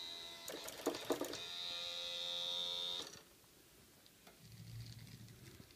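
Small electric gearmotor of a model parking gate running with a steady whine as it swings the gate arm open for a car that has triggered the entry sensor, with a few clicks about a second in; the motor cuts off sharply about three seconds in, and a fainter low hum follows near the end.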